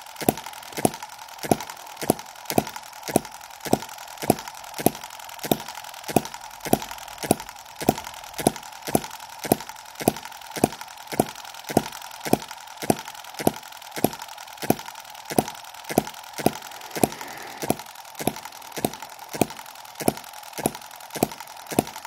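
Microcosm M17 1.6cc miniature hit-and-miss engine running, with a sharp, even beat about twice a second over a steady mechanical hiss.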